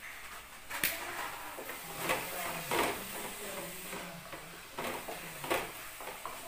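Wooden spatula scraping and stirring thick coconut-jaggery filling in an aluminium kadai, with several sharper scrapes and knocks against the pan as the filling is fried dry.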